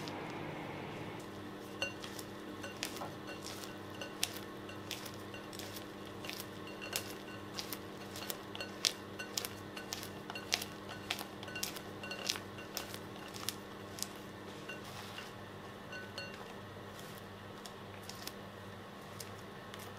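Silicone spatula knocking and scraping against a glass mixing bowl as flour is folded into thick cake batter: many quick clinks, thinning out after about fifteen seconds.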